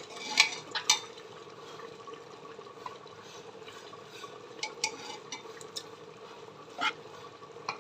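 A spoon scooping half-boiled rice into a pressure cooker, with several short knocks and scrapes of the spoon against the pot: a cluster in the first second, a few more midway, and a sharper knock near the end. A steady hum runs underneath.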